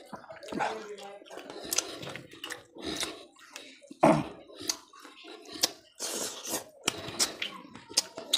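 Close-up eating by hand: fingers squishing rice and fish curry together on a steel plate, with wet chewing and lip smacks, an irregular run of squishy clicks and smacks, the sharpest about four seconds in.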